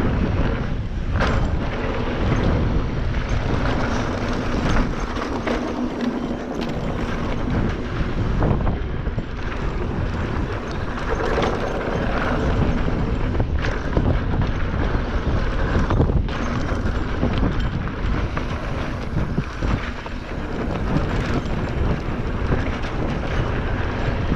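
Wind buffeting the camera microphone over the rattle of a mountain bike and its tyres rolling fast over a rough dirt and rock trail, with frequent sharp knocks as it hits bumps.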